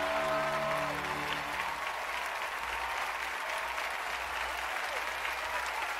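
Studio audience applauding loudly, with the last notes of the dance music stopping about two seconds in and a few shouts rising over the clapping.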